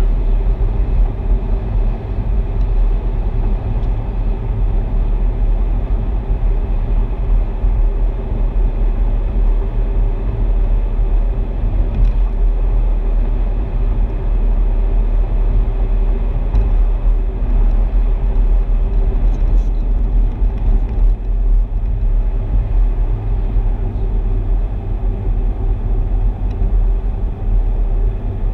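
Car driving at steady highway speed: a constant low rumble of engine and tyre noise heard from inside the car, with a steady hum and no change in pace.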